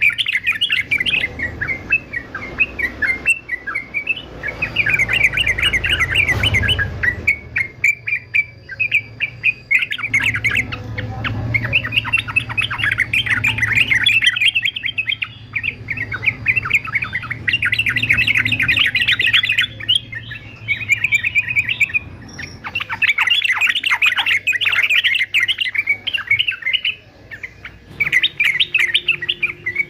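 Male yellow-vented bulbul (trucukan) singing in flurries of rapid, chattering chirps, one burst after another with short breaks between.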